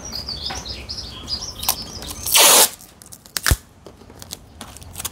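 Small birds chirping rapidly and repeatedly for the first two seconds. Then a short loud rustling, scraping noise about two and a half seconds in, and a single sharp knock a second later, followed by a few faint clicks.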